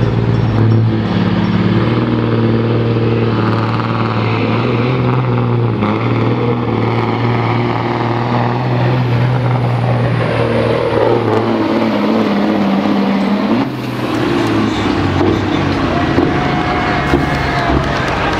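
Long-nose Peterbilt semi tractor's diesel engine running hard while it pulls a weight-transfer sled down a dirt track. Past the middle its pitch falls steadily under the load, then it suddenly backs off about 14 seconds in as the truck reaches a full pull.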